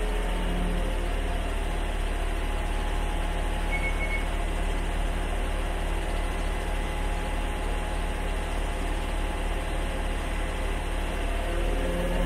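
Truck-mounted mortar pump's engine running steadily with a low, even hum, driving the pump while water is flushed through the hose to rinse it out.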